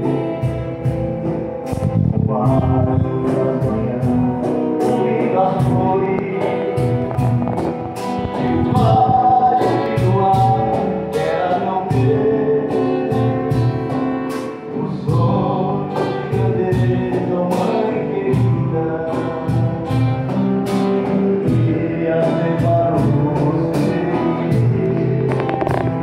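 Live acoustic band: a man singing over two strummed acoustic guitars, with hand percussion keeping a steady beat.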